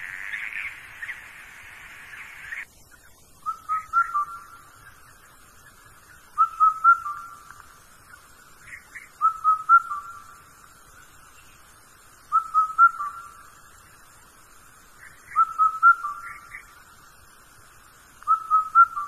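A short whistled phrase of a few quick notes, repeating at an even pace about every three seconds. Before it, a steady hiss cuts off suddenly about two and a half seconds in.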